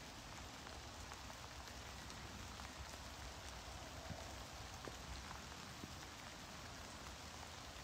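Steady light rain falling on a water surface: a faint, even hiss with a few separate drop ticks.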